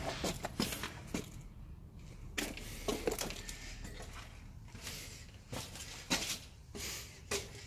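Footsteps and scuffs on a concrete floor at an uneven walking pace.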